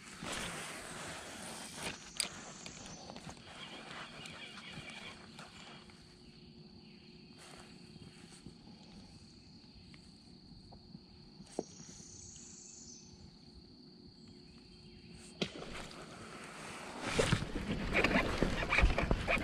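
Quiet river-side outdoor ambience with a few sharp clicks as the spinning rod and reel are handled from a kayak. In the last couple of seconds, louder water sloshing and knocking around the kayak hull.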